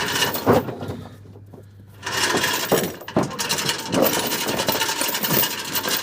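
A knock, then a few seconds of rapid mechanical rattling and clattering from about two seconds in.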